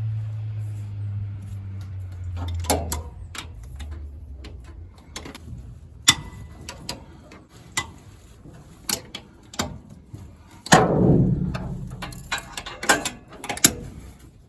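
Hand tools working bolts loose on a Ford 351 Windsor V8: a low hum fades out in the first few seconds, then sharp metallic clicks and clanks from a breaker bar and ratchet on the bolts, with a louder clattering knock about eleven seconds in.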